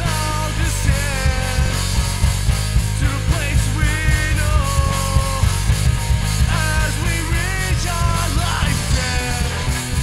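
Punk rock band playing live: electric guitar and bass guitar over a steady beat.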